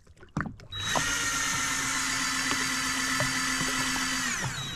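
Daiwa Seapower 800 electric fishing reel's motor winding line in after a bite: a steady high whine that starts about a second in and drops in pitch as it stops near the end, with a brief high tone just before it starts and again as it stops.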